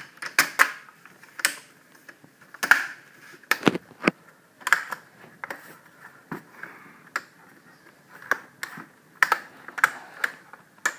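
Plastic screen bezel of a Gateway NE56R49u laptop being pressed back on by hand, its snap clips clicking into place again and again in an irregular series of sharp clicks.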